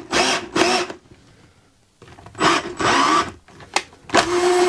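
Electric drill boring into the edge of a multiplex plywood board, run in short bursts on the trigger with a pause in the middle, then held running steadily near the end. A sharp click comes shortly before the steady run.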